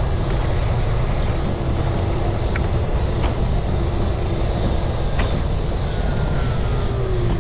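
Small engine of a Hi-Boy scooter running steadily while being ridden, with a low rumble of wind and road noise.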